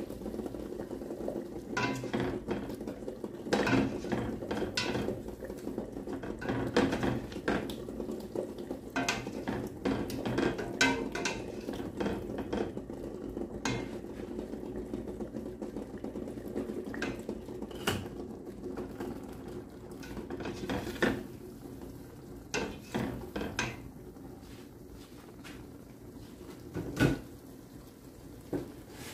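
A spatula stirring a thick yogurt-and-spice sauce in a stainless steel pot: repeated clacks and scrapes against the pot, over a steady low hum. The clacks are frequent at first and thin out in the second half, with one louder knock near the end.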